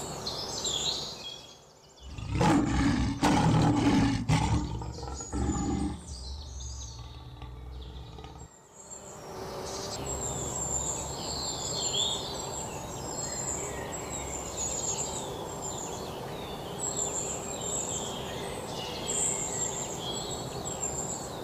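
A lion roaring: a few loud, deep roars over about four seconds, beginning a couple of seconds in. From about halfway through, steady outdoor ambience with birds chirping takes over.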